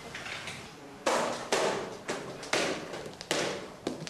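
A giant Jacob's ladder-style toy of hinged white panels flipping and clacking down its chain: about six sharp clattering bursts, each trailing off briefly, starting about a second in and roughly half a second apart.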